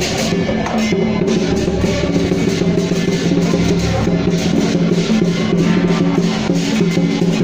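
Lion dance music playing loudly: busy drumming and percussion over sustained pitched tones.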